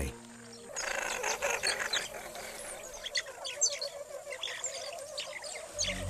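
Field sound of small animals chirping: a run of many short, high chirps and twitters coming in quick succession.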